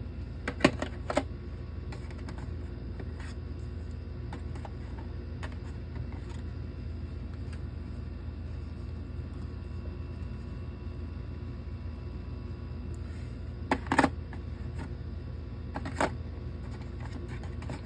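Plastic board game miniatures handled and set into the box's tray insert, giving a few short, sharp clicks: two about a second in, two more around fourteen seconds and a last one two seconds later, over a steady low hum.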